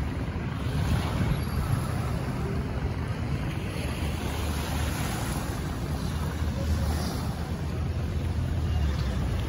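Steady wind rumbling on the microphone over the wash of calm sea water.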